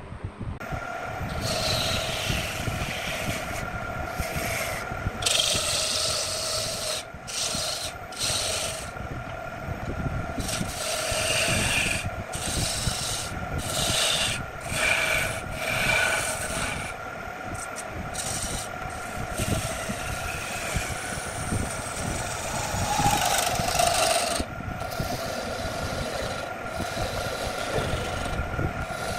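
Electric wood lathe running with a steady hum while a hand-held turning tool cuts and scrapes the spinning redwood blank in repeated stop-start passes, with a rasping sound of wood shavings coming off.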